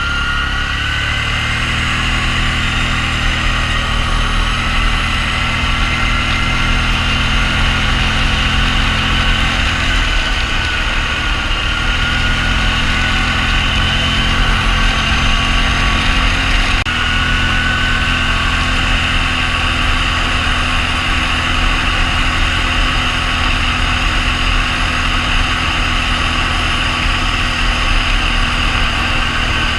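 Quad bike (ATV) engine idling steadily close by, with a thin high whine that drifts slowly in pitch.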